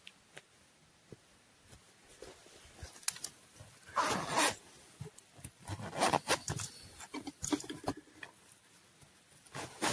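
Intermittent rustling, scraping and crinkling of camping gear being handled, with a longer rush about four seconds in and a busier stretch of scrapes between about six and eight seconds.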